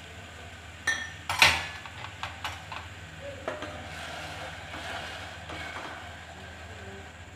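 A spoon clinking and tapping against a cooking pan while stirring a pinch of yellow food colour into sugar syrup. There are several sharp clinks in the first few seconds, the loudest about one and a half seconds in, followed by softer stirring.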